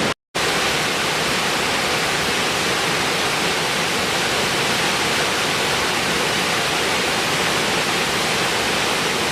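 Steady rushing water, an even full-bodied noise without pauses, after a brief silent break right at the start.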